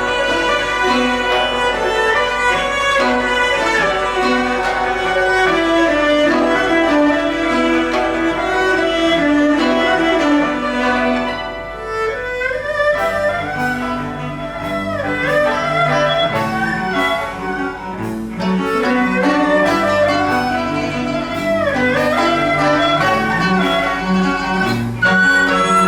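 Chinese chamber ensemble of erhu, dizi, pipa, yangqin, zhongruan and cello playing a lyrical melody. A bowed string line over cello bass carries it, with sliding notes that fall in pitch several times in the second half. The music softens briefly about halfway through.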